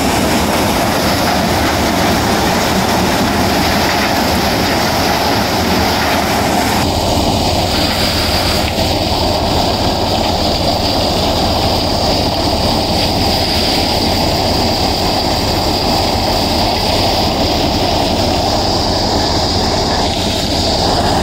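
Tractor-driven maize thresher running steadily: a loud, dense mechanical noise with no breaks. The low rumble grows heavier about seven seconds in.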